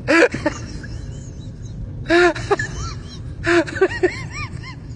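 A high-pitched human voice laughing or squealing in short bursts: a couple of syllables about two seconds in, then a quick run of about five near the end, over a steady low rumble.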